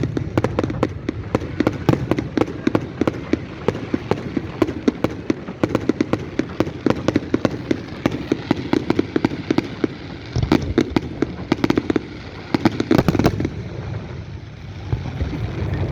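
Fireworks display: a dense, continuous crackle of many rapid cracks and pops over a low rumble, with a heavier run of louder bangs about two-thirds of the way through.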